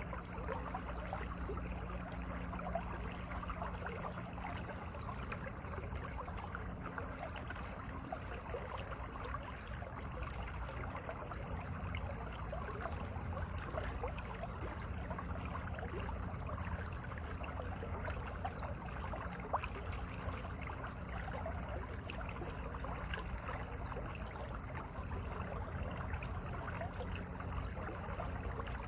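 Mountain valley stream, the water babbling steadily without a break.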